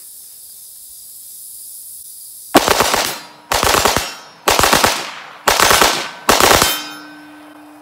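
Rapid fire from an AR-15 with an 18-inch .223 Wylde barrel and an Echo binary trigger. Five quick bursts of shots, about a second apart, start about two and a half seconds in.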